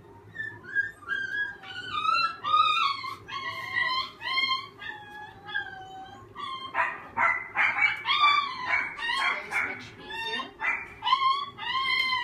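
Frightened puppy crying in a rapid string of high-pitched, wavering whines and yelps, turning harsh and screaming for a few seconds in the middle, in distress at being leashed.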